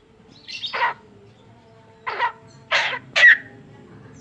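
Pet Javan myna giving four short, loud calls: the first slides down in pitch, then three more follow in quick succession.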